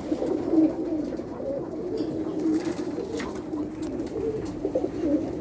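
A flock of domestic pigeons cooing together in a small loft, many overlapping calls at once, with a few faint clicks among them.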